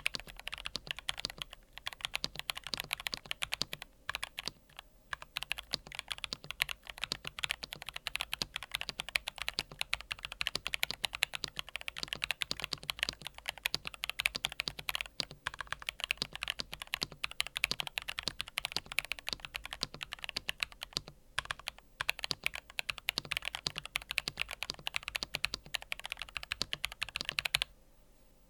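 Continuous typing on a NuPhy Field75 mechanical keyboard with NuPhy Fleeting Gold switches: a dense, rapid run of key clacks with a few brief pauses. The typing stops shortly before the end.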